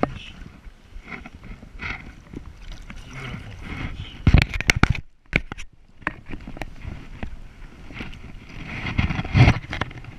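Water splashing and knocking as a brown trout thrashes in a rubber-mesh landing net held at the water's surface, in irregular bursts, loudest about four seconds in and again near the end.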